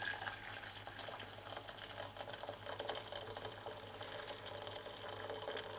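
Hot water poured from a kettle into a saucepan: a steady splashing, crackling pour over a faint low hum.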